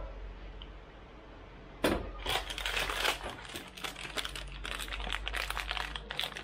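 Hands working on engine pistons and piston rings at a bench: a sharp knock about two seconds in, then a dense run of small clicks and crinkling rustle as the parts are handled.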